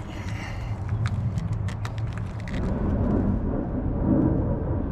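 Low engine rumble that swells steadily louder about halfway through. Scattered light clicks of tools or parts being handled come in the first couple of seconds.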